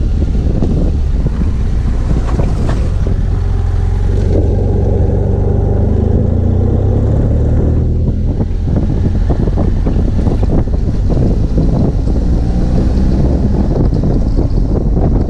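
Wind buffeting the camera microphone over the running parallel-twin engine of a BMW F 800 GS Adventure, ridden on a dirt road. The engine's pitch holds steady for a few seconds in the middle, and many short knocks and rattles from the rough surface follow.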